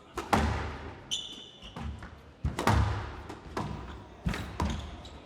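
Squash rally: the hard rubber ball cracks off rackets and the court walls at irregular intervals of half a second to a second, with shoes squeaking briefly on the court floor about a second in.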